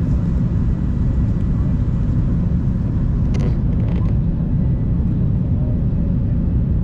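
Steady, loud low rumble of airliner cabin noise aboard an Airbus A380, with a faint steady whine, and two brief rustling sounds about three and four seconds in.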